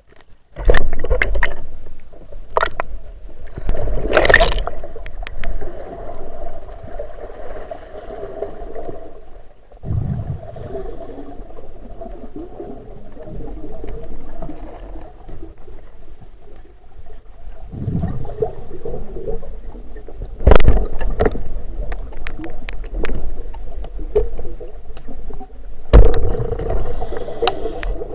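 Muffled underwater sound picked up by a submerged camera: a steady murky rush of water with irregular knocks and clatters against the housing, the loudest bunches of knocks about 4 seconds in and again near 20 and 26 seconds.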